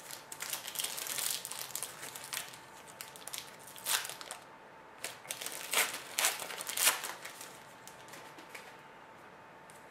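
Foil trading-card pack wrappers crinkling and tearing as hockey card packs are opened and handled, in irregular bursts that are loudest around the middle and die down near the end.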